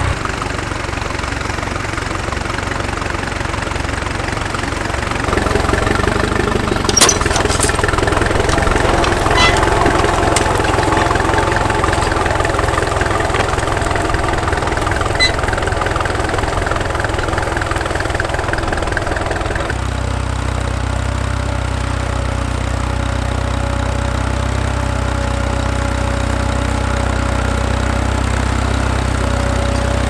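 Vintage tractor engines running steadily under load while pulling trailed ploughs through the soil, with a few sharp clanks between about seven and ten seconds in. The engine note changes twice as different tractors are heard.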